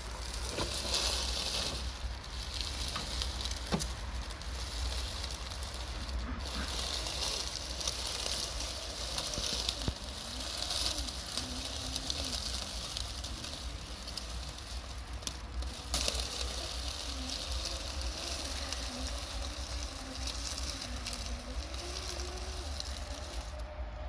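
Traxxas TRX-4 G500 RC crawler driving over dry fallen leaves, which crackle and rustle under its tyres, with a few sharper snaps. From about ten seconds in, a faint whine from the electric motor and gears rises and falls with the throttle.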